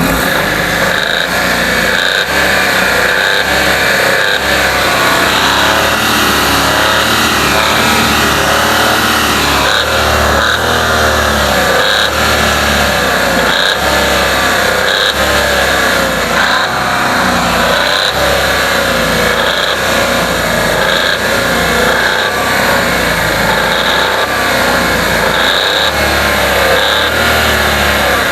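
Car engine running with a rapid, steady knock from deep in the block, which is put down to the crankshaft, a sign of worn crankshaft bearings.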